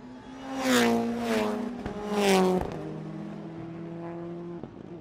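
Intro logo sound effect of a car engine: two fast passes about one and two and a half seconds in, each with a rushing sound and a falling pitch, then a steadier engine note that stops near the end.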